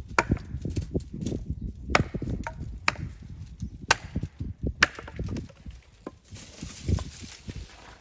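Small dry sticks of firewood being broken up for kindling: a string of irregular sharp wooden cracks and knocks, some loud.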